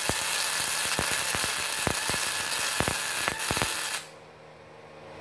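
MIG welding arc on steel, 0.8 mm solid wire under CO2 shielding gas, crackling and hissing steadily with irregular sharp pops of spatter. The arc cuts off suddenly about four seconds in.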